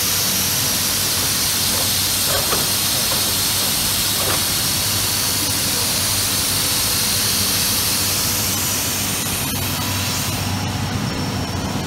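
2005 Kaeser ASD 32T rotary screw air compressor running: a steady low hum under a loud rush of air. The hiss eases a little near the end.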